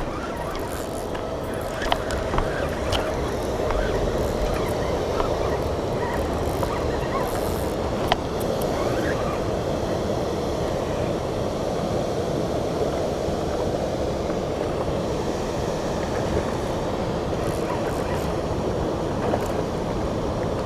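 Steady rush of heavily flowing water pouring through a spillway, with a few faint clicks over it.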